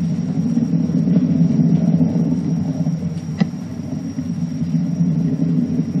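Steady low rumble of a rocket in flight from a film soundtrack, played over a hall's loudspeakers, with a single sharp click a little past halfway.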